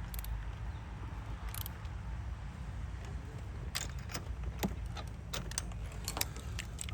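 Hand tools clicking and clinking on metal under the hood, about ten sharp irregular clicks starting a little past halfway, over a steady low rumble.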